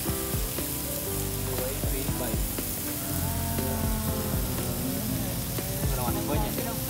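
Meat and shrimp sizzling on a round tabletop grill plate with a broth moat, Lao sindad-style barbecue, a steady hiss. Background music with held notes plays underneath.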